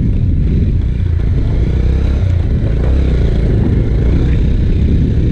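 Motorcycle running steadily as it is ridden along a rough dirt track, with a heavy low rumble of engine and wind noise on the microphone.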